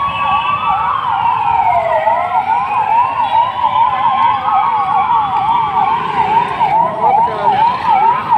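Police vehicle sirens sounding together: one in a fast yelp, about three rises a second, over another in a slower rising and falling wail.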